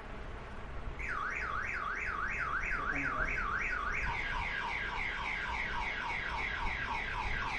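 Anti-theft alarm app going off on a smartphone in pocket mode, playing a car-alarm siren from the phone's speaker. It starts about a second in with a tone sweeping up and down about three times a second, then changes midway to a faster warble of several tones.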